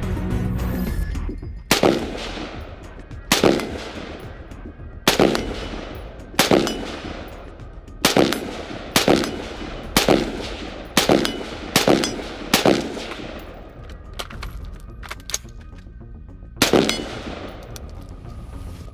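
AR-15-style rifle firing about eleven single shots, each followed by a ringing echo, at first a shot every second and a half or so, then quicker at about one a second, and a last shot after a pause near the end. A low droning logo sting fades out in the first second.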